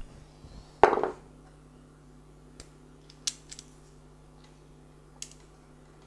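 Hands fitting a small circuit board into a plastic junction box: a loud knock and rattle of plastic about a second in, then a few light clicks and taps, over a steady low hum.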